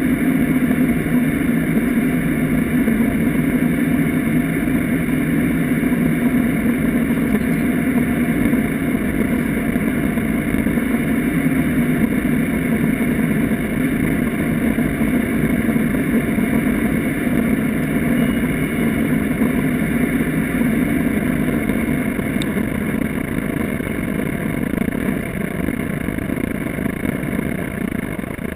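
Steady drone of an aircraft's engine and propeller during the takeoff climb, easing slightly near the end.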